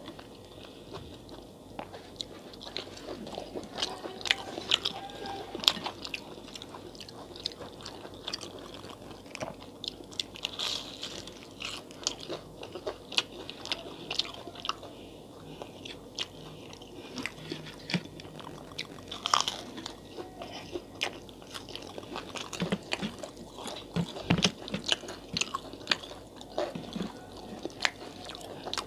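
Close-miked eating sounds: a person biting and chewing crunchy fried fritters and mouthfuls of rice with dal eaten by hand, with many short, sharp crunches.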